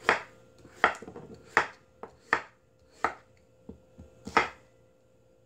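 Kitchen knife cutting squash into thick pieces on a wooden cutting board: about seven sharp chops, roughly one every three-quarters of a second, as the blade goes through and knocks the board.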